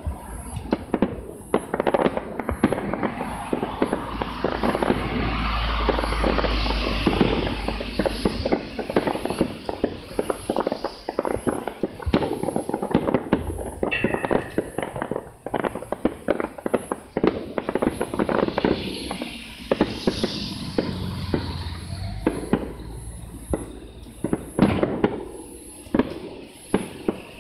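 Fireworks display: a rapid, continuous barrage of aerial shell bursts, a dense run of bangs and crackles. A heavier low rumble swells about five seconds in and again a little past twenty seconds.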